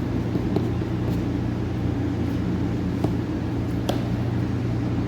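Steady low machine hum, like an appliance motor running, with a few faint light clicks.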